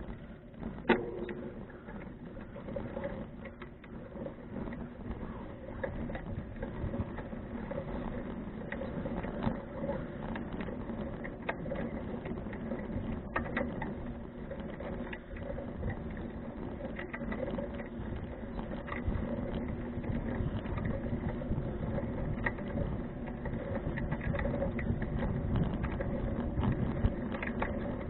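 2012 Fuji Touring bicycle rolling along: a steady tyre-and-road rumble with the bike rattling and many small quick clicks. There is one sharp knock about a second in.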